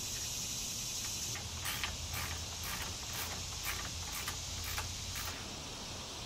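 Socket ratchet clicking in short repeated strokes, about two clicks a second, as the rack's bolts are tightened, over a steady chirring of crickets.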